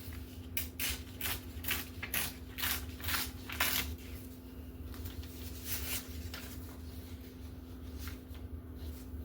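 Paper being torn by hand into strips: a quick run of short rips in the first few seconds, a couple more about five to six seconds in, then quieter rustling of the paper.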